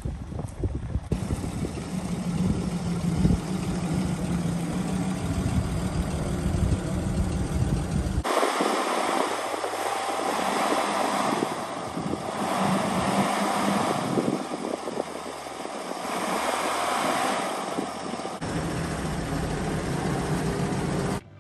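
A vehicle engine running steadily at idle, with a steady low hum; about eight seconds in the low hum cuts out abruptly and a noisier, higher stretch takes over for about ten seconds before the hum returns.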